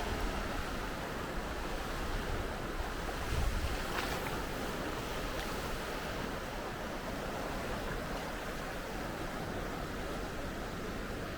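Steady wash of sea waves, with wind buffeting the microphone in uneven low rumbles.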